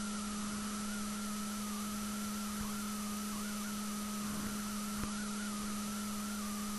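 Steady electrical hum with an even hiss, plus a fainter, slightly wavering higher tone.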